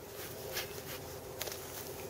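Steady hum of many agitated honeybees swarming around an opened hive, with a couple of sharp clicks.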